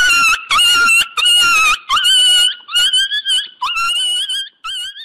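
A run of about seven high-pitched squealing cries, each about half a second long with a bending pitch, one after another, growing weaker and shorter near the end.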